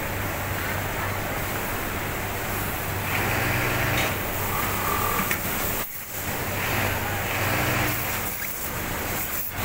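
Steady hum of garment-factory machinery, with two bursts of hiss about a second long, the first about three seconds in and the second about seven seconds in.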